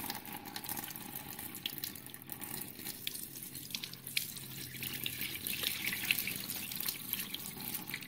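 Dirty water pouring and splashing out of a carpet washer's recovery tank into a stainless steel sink, a steady trickle with many small drips and spatters.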